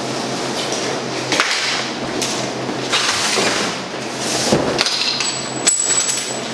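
Footsteps and a few scattered knocks of handling as a cardboard box is set down on a stainless-steel workbench, over a steady low hum and hiss.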